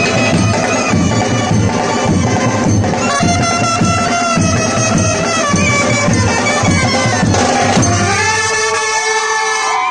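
Indian brass band playing a Koli folk song: saxophones, trumpets and clarinets play the melody in unison over beating drums. About eight seconds in, the drums stop and the horns hold long notes.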